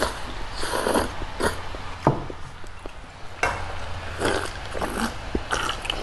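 Noodles being slurped and chewed, a run of short, irregular wet slurps and mouth smacks.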